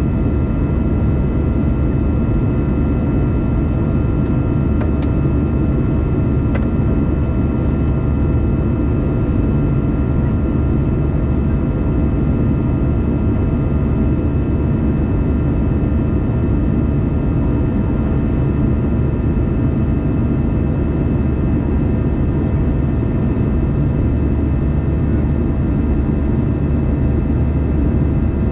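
Steady jet-engine noise of an Airbus A320 heard inside the cabin during the climb after takeoff: a deep rumble with a drone of several steady whining tones over it. Two faint clicks about five and six and a half seconds in.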